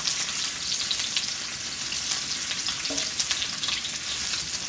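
Sliced onions sizzling and crackling in hot oil in an electric skillet, stirred with a silicone spatula.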